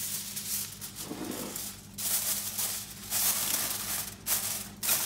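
Sheet of aluminium foil crinkling and rustling in several bursts as it is folded and pressed down over a pudding basin.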